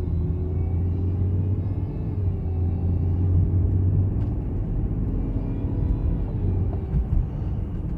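BMW F10 535i under way: a low rumble with a tone that drifts slowly up and down in pitch over it, the weird noise the owner is tracking down.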